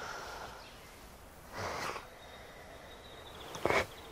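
A woman sniffling while crying, a breathy sniff about one and a half seconds in and a sharper one near the end, over faint outdoor background hiss.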